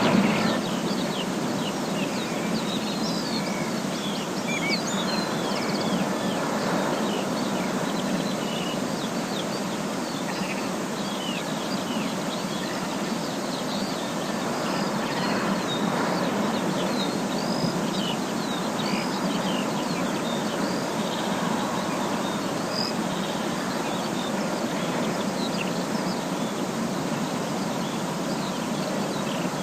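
Forest ambience: many small birds chirping and calling in short quick notes over a steady rushing background noise.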